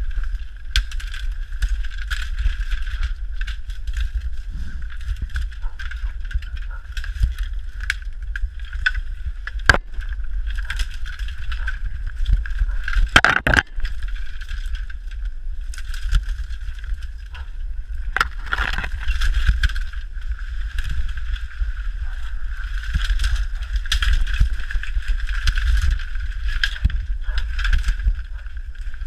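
Rumbling handling noise and rustling as the camera is pushed low through dense bamboo, stalks scraping past it, with a few sharp knocks where stalks strike it.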